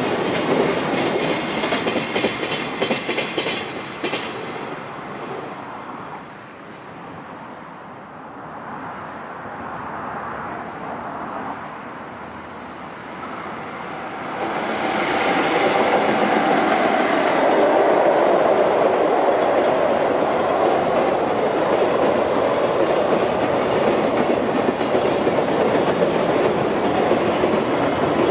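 Freight container trains passing. First, wheels clatter in a regular clickety-clack over the rail joints and fade after about four seconds. After a quieter stretch, another freight train comes in about halfway and runs past loudly and steadily.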